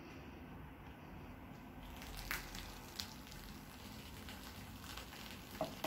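Vinegar poured onto baking soda, the mixture fizzing faintly from about two seconds in, with a few light clicks.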